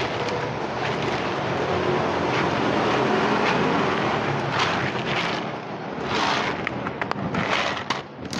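Dry cat kibble rattling as it is poured from a plastic bottle into a plastic tray, over a steady low rumble.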